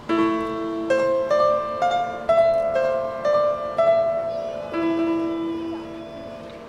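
Music: a slow melody of single struck notes, about two a second, each ringing and dying away over a low held note, starting suddenly and fading near the end.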